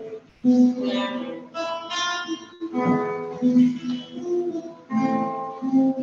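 Instrumental music on a plucked string instrument: chords and single notes struck about every half second, each ringing out and fading.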